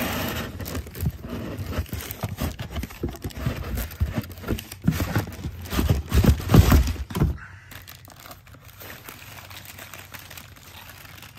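Tissue paper crinkling and rustling as hands handle it inside a cardboard shoebox, with irregular crackles and the odd knock of the box. It is loudest about six to seven seconds in and stops about seven and a half seconds in.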